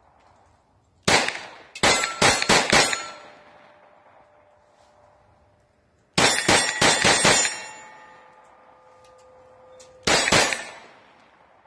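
Glock 44 .22 LR pistol firing in quick strings: one shot, a burst of about five, then about six, then two near the end. Steel targets clang and ring on for a second or so after the hits. The ProMag magazine feeds the whole run without a stoppage.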